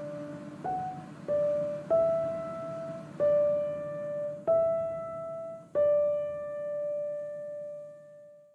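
Background music: a slow piano melody, single notes struck one at a time, the last note ringing on and fading out.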